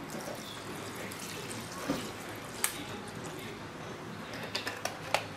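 White rice liquor poured from a plastic bottle onto raw meat in a stainless steel pot: a steady splashing pour, with a few sharp clicks, more of them near the end.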